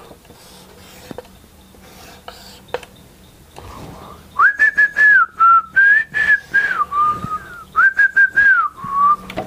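A man whistling a short tune from about halfway through, in held notes that step up and down in pitch with brief breaks. Before it, faint taps and scratches of a marker on a whiteboard.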